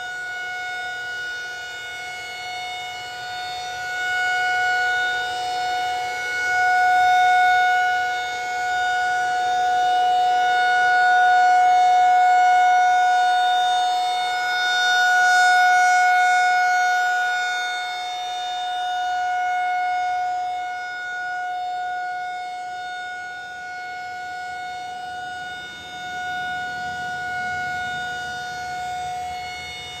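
Federal Signal 2001-SRN rotating electromechanical warning siren sounding a steady single-tone alert signal for its monthly test. The pitch holds steady while the loudness swells and fades every few seconds as the turning horn sweeps past.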